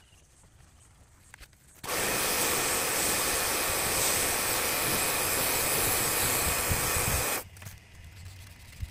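Small electric Kärcher mini pressure washer spraying a jet of water onto an aluminium dinghy's hull. It starts abruptly about two seconds in and cuts off about five and a half seconds later.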